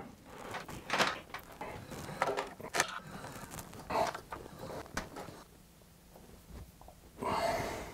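Links of a 415-pitch motorcycle roller chain clicking and rattling as it is handled and threaded onto the sprockets by hand, in irregular light metallic clinks that thin out about two-thirds of the way through.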